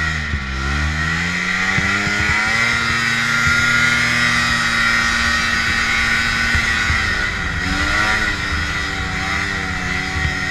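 Ski-Doo Tundra snowmobile riding through snow. The engine note dips just after the start, climbs over the next couple of seconds and holds steady, then eases off briefly about eight seconds in and picks up again.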